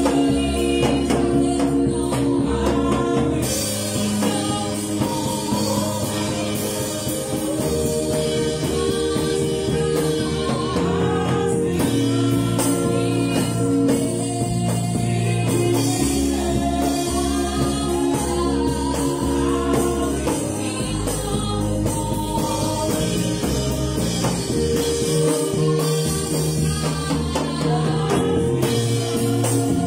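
Live gospel worship music: a woman singing over held chords on a Yamaha keyboard, with a drum kit played along.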